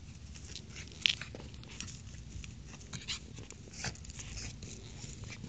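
Two small dogs playing together on grass, making a scatter of short rustling and clicking noises as they tussle, with one sharp click about a second in.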